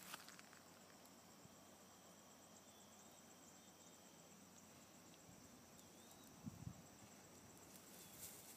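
Near silence outdoors: a faint steady high-pitched insect trill, a few faint chirps, and one brief soft thump about two-thirds of the way in.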